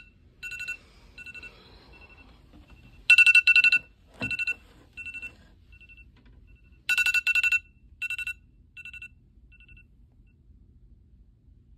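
iPhone alarm ringing: repeated electronic beeps in loud clusters that fade away in echoing repeats, coming round about every four seconds. The beeps stop near the end as the alarm is switched off, and there is a soft knock about four seconds in.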